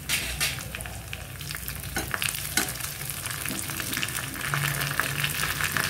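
Curry leaves, browned onion and a dried red chilli sizzling in hot oil in a small tempering pan, with sharp crackles here and there, while a metal spoon stirs them.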